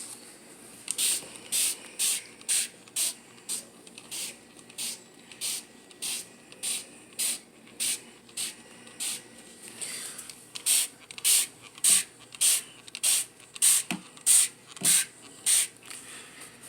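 Scrubbing or wiping strokes, back and forth at about two a second with a hissy rasp, growing louder about ten seconds in: a refrigerator's surfaces being scrubbed clean.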